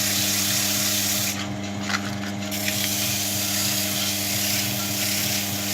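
100-grit sandpaper rubbing against a soft pine wooden ball, a steady scratchy hiss that eases off for about a second partway through, over the steady hum of a running motor.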